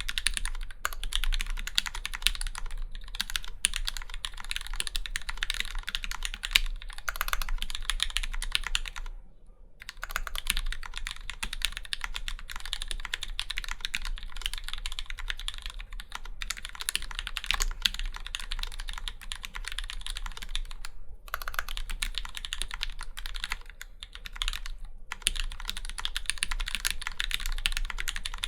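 Steady fast typing on an acrylic Alice-layout mechanical keyboard with Krytox-lubed Gateron Black Ink linear switches and GMK keycaps: a dense stream of keystrokes, with a clear pause about a third of the way through and a couple of shorter breaks later.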